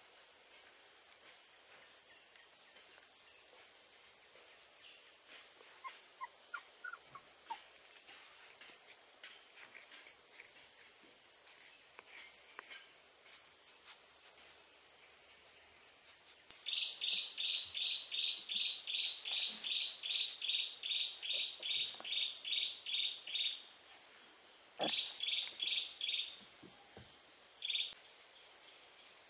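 Steady, high-pitched drone of insects (cricket or cicada type). About halfway through, a bird joins with quick runs of short chirps, about three a second. The insect drone cuts off abruptly near the end.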